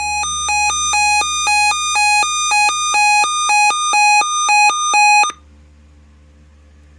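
Electronic alert tone: two beeps of different pitch alternating about twice a second, growing steadily louder, then cutting off suddenly about five seconds in. It is the attention signal that opens a severe thunderstorm watch alert. A low steady hum runs underneath.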